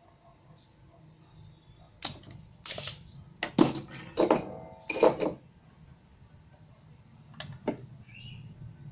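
Spring-loaded desoldering pump snapping and clicking while solder is sucked off the leads of an old filter capacitor on a CRT TV circuit board: about six sharp snaps between two and five seconds in, then two lighter clicks near the end.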